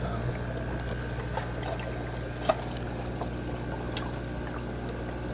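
Reef aquarium sump running: a steady rush of trickling, pouring water over a low steady pump hum, with a sharp click about two and a half seconds in.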